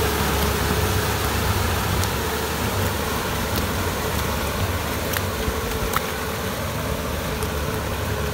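Tractor engine running steadily as it pulls a rotary tiller through flooded paddy mud: a constant low drone with a faint steady whine over it.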